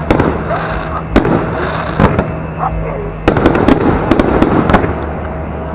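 Large aerial firework shells bursting: a run of sharp bangs, the strongest about a second, two seconds and just over three seconds in, with crackling in between.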